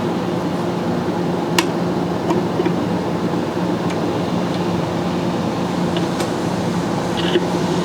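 1960s RCA Victor portable record player running with no music yet: a steady amplifier hum and record surface hiss, with a few faint clicks from the stylus in the groove.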